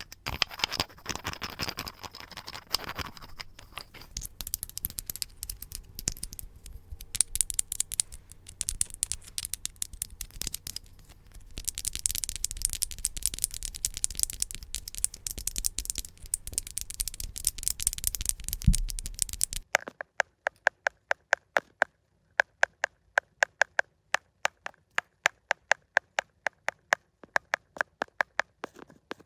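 Close-miked ASMR trigger sounds: fast scratching and scraping on a surface, dense with small crackles. Just under two-thirds of the way in, this cuts off abruptly and becomes a steady rhythm of sharp taps, about three a second, each with a short ringing tone.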